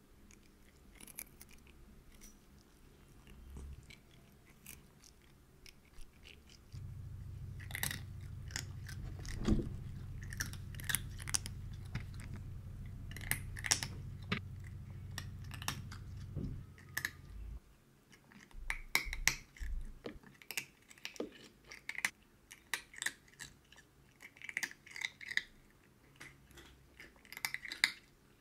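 Cats chewing crunchy treats fed from the hand: a long irregular run of sharp crunches. A steady low hum sits under the crunching from about seven seconds in until about seventeen seconds in.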